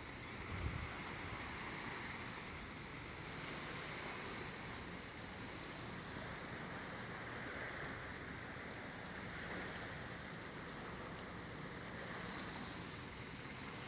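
Steady rushing water noise from an outrigger boat moving through calm water.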